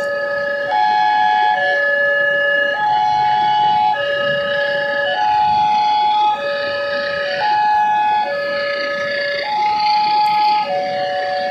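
Two Wantech railway level-crossing warning sirens sounding together: electronic tones stepping between three pitches in a repeating pattern, with overlapping notes from the two units.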